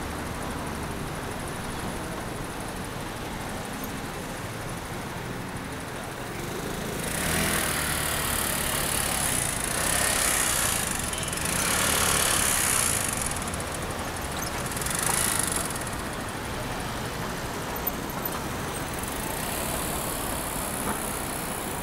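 City road traffic: a steady background of traffic noise, with several vehicles passing close in the middle, each swelling and fading away.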